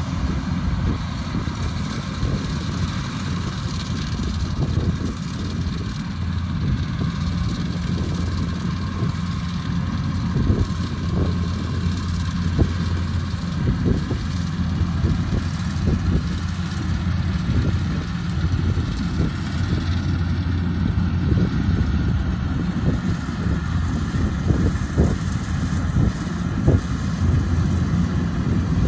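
Kubota DC-105X combine harvester's diesel engine and machinery running steadily, with scattered short knocks.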